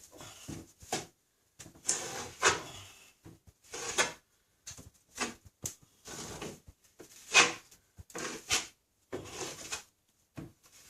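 Metal drywall taping knife scraping and smoothing joint compound over paper tape on a ceiling: a series of irregular short strokes, the loudest about two-thirds of the way through.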